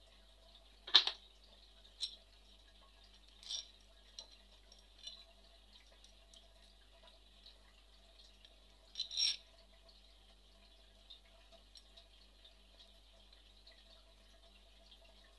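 Scattered light clinks and knocks of metal tools and parts being handled. The loudest comes about a second in, with a double knock about nine seconds in.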